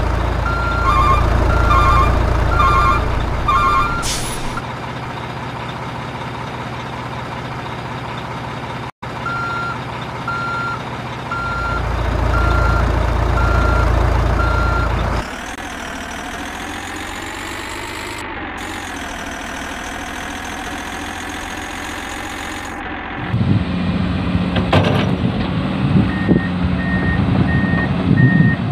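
Toy construction trucks' electronic sound effects: repeating reversing beeps over a low engine rumble, then a rising and falling motor whine. Near the end a second, higher-pitched reversing beep comes in.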